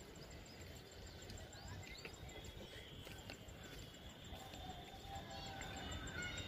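Faint outdoor ambience: several birds chirping in short calls over a low, uneven rumble.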